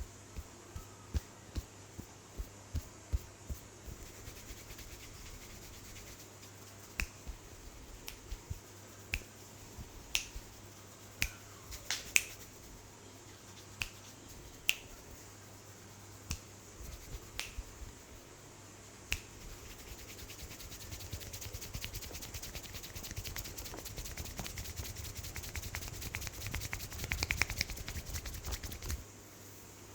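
Hand-massage sounds: soft regular pats about twice a second, then sharp snaps every second or so, then a fast, even run of rapid tapping that stops suddenly near the end.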